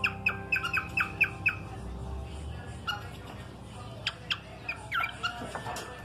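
Cockatiel giving a quick run of short, sharp chirps, about four a second, for the first second and a half, then a scattering of quieter chirps and a few sliding whistled notes.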